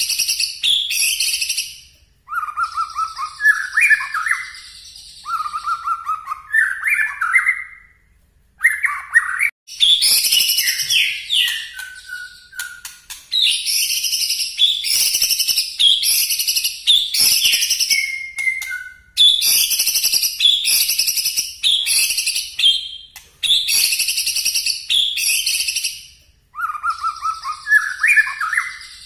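A white-rumped shama (murai batu) singing loudly in repeated phrases. Bursts of rapid, high chattering notes (the sharp 'shooting' song, nembak) alternate with lower warbled runs, with a few short pauses between phrases.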